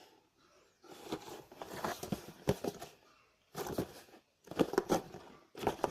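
Packaging crinkling and rustling in irregular bursts as a boxed toy is handled, with short pauses about three and four seconds in.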